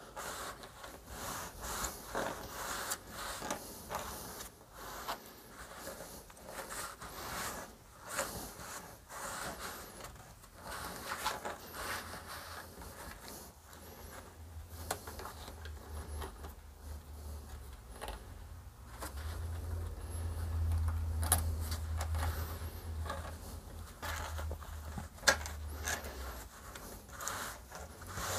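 Chainsaw recoil starter's coiled steel spring being wound by hand back into the starter housing: quiet, irregular small scrapes, rubs and clicks as the coils are pressed down. A low steady hum joins about halfway through.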